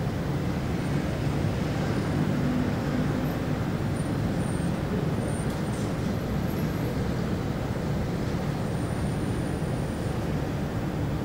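City street traffic ambience: a steady rumble of passing road vehicles.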